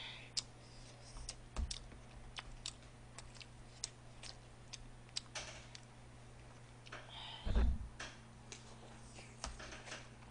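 Eating sounds: irregular light clicks and taps of a plastic utensil against disposable takeout plates as black-bean sauce and fried rice are mixed, with one louder low thump about seven and a half seconds in, over a faint steady hum.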